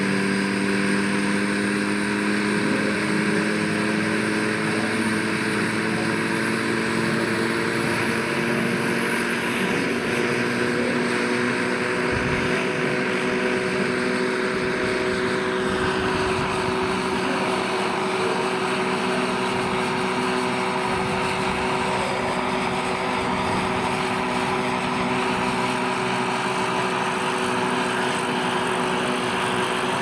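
Jakadowski Pro X turbine of a large-scale EC-145 model helicopter running with the main and tail rotors turning on the ground: a high turbine whine over the rotor and drivetrain hum. Both rise slowly in pitch for about the first ten seconds, then hold steady.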